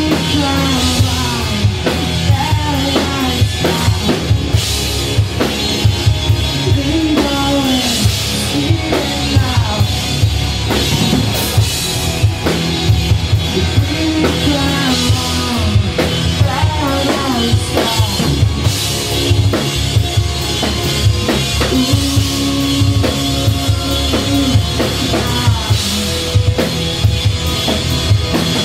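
Live rock band playing loud: drum kit with bass drum and snare, bass guitar and electric guitar, with a singer's vocals over them.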